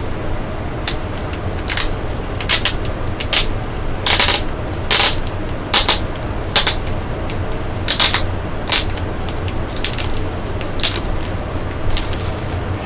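Blu-ray packaging being opened by hand: a run of sharp, irregular crackles and rustles of wrapping being torn and handled, over a steady low hum.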